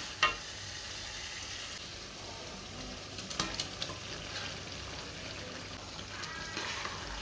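Food frying in a pan with a steady sizzle, and a few sharp clicks of a utensil against the pan as it is stirred, some about three and a half seconds in.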